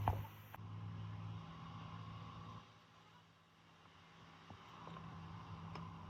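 Steady low hum of a running motor or engine. It fades out about two and a half seconds in and returns faintly, with a sharp knock at the start and a few light clicks.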